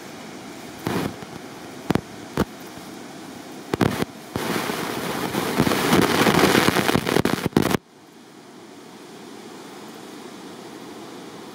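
Wind buffeting the camera microphone: several short gusts, then a louder sustained blast for about three seconds that cuts off suddenly, leaving a steady low rush.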